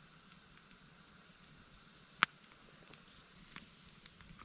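Campfire of split logs crackling quietly, with one sharp pop about two seconds in and a few small ticks near the end.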